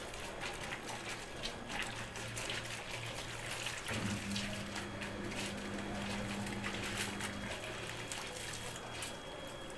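Water trickling and splashing inside a Samsung Ecobubble washing machine, with a steady low hum starting about four seconds in and stopping about three and a half seconds later.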